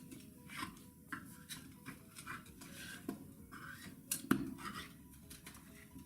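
Upholstery staples being pried and pulled out of a wooden chair seat frame: irregular metallic clicks and short scrapes, over faint background music.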